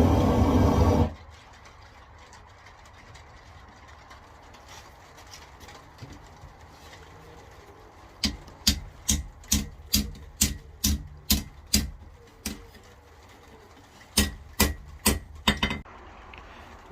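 A loud steady roar cuts off suddenly about a second in. After a quiet stretch come two runs of hammer blows on iron at the anvil, about two to three sharp strikes a second, the second run shorter.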